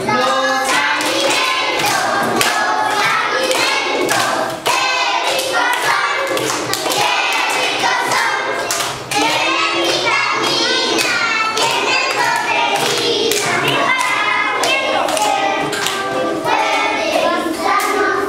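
A group of young children singing together and clapping their hands in a steady rhythm.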